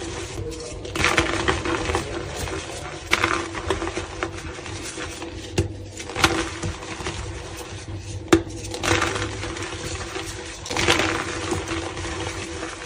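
Blocks of reformed gym chalk crushed by hand, crumbling into powder with a soft crunch and sharper cracks every second or two.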